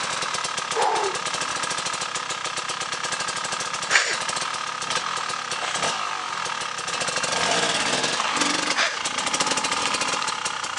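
Enduro dirt bike engine running at low revs, carried on the throttle as the bike is ridden slowly up a rocky trail. A single sharp knock sounds about four seconds in.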